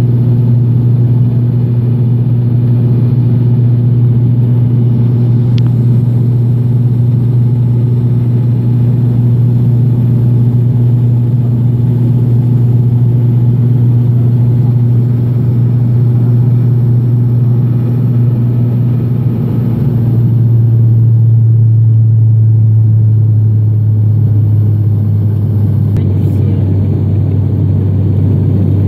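Cabin drone of an ATR 72-500 turboprop in flight: the propellers' steady low hum over engine and airflow noise. The hum steps down in pitch about twenty seconds in and again near the end, as the propeller speed is lowered.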